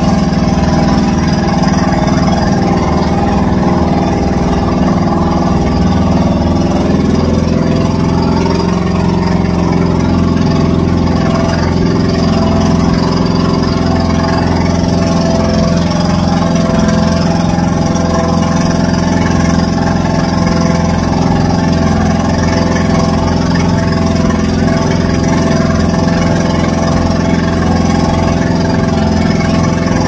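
Motorised outrigger boat (bangka) engine running steadily at an even pitch.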